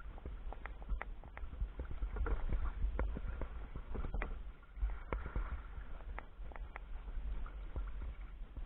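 Sea kayak under way: water splashing and lapping at the hull, with many short, irregular knocks and clicks. A steady low rumble of wind on the microphone runs underneath.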